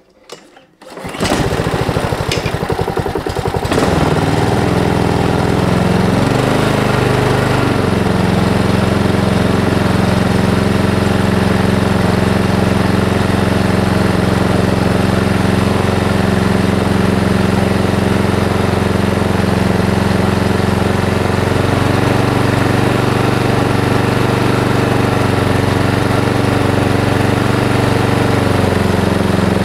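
Honda petrol lawn mower engine starting about a second in, picking up speed over the next few seconds and then running steadily at a constant speed, just after a fresh oil change.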